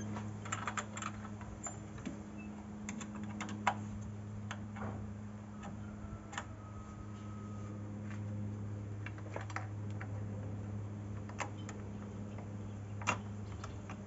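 Irregular sharp clicks and ticks, a few a second at most, over a steady low hum.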